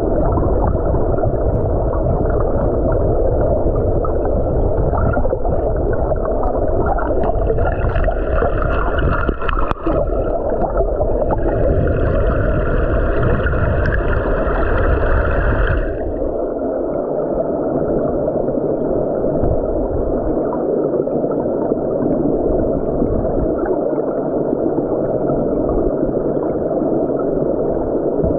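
Muffled rush of stream water heard with the camera submerged, a loud steady dull noise. A higher hiss comes in twice, from about 8 to 10 seconds and from about 11 to 16 seconds.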